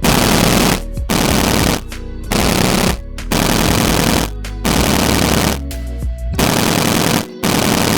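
Background music with loud, harsh noise hits that cut in and out abruptly about once a second, alternating with quieter pitched passages.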